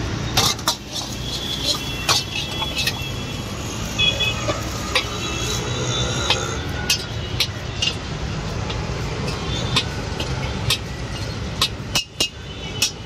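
Metal ladle repeatedly clanking and scraping against a steel wok as egg fried rice is stir-fried and tossed, in sharp irregular strikes over a steady low rumble.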